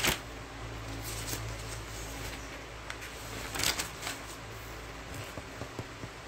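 Handling noise: rustling and scraping with several sharp clicks, the loudest about three and a half seconds in, over a steady low hum.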